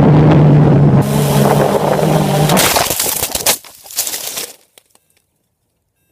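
Blade 350 QX quadcopter's motors humming steadily with wind on the microphone, then about two and a half seconds in a rough run of knocks and scraping as the quadcopter crash-lands. The motor sound stops and the sound cuts out about five seconds in.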